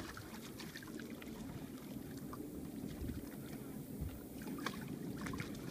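Wind rushing over the microphone and small waves lapping close by, with faint scattered splashes.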